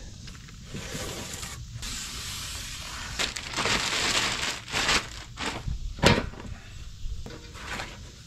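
Cardboard box and plastic wrap rustling and crinkling as a new aluminium radiator is unpacked, with a sharp knock about six seconds in.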